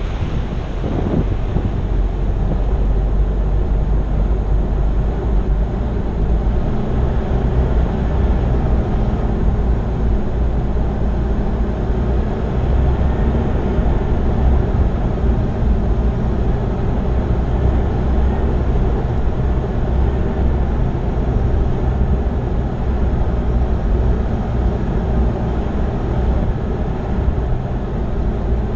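Off-road 4x4 driving along a dirt and gravel track: steady engine drone and tyre rumble, picked up by a microphone on the bonnet.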